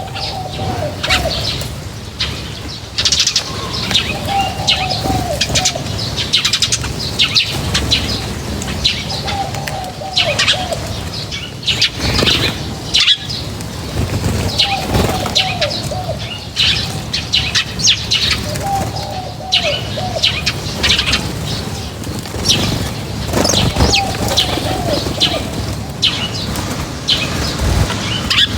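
Birds at a feeding spot: many small birds chirping over one another, while a lower call of a few falling notes comes back about every five seconds.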